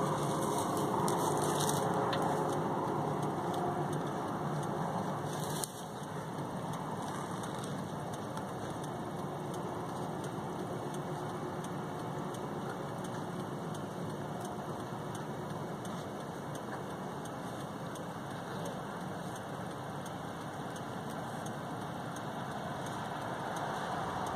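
A stopped vehicle's engine idling, heard from inside the cabin as a steady hum that drops a little in level about six seconds in.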